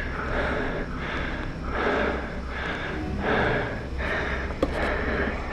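A person panting hard, in rapid rhythmic breaths close to the microphone, winded from climbing a steep hill path.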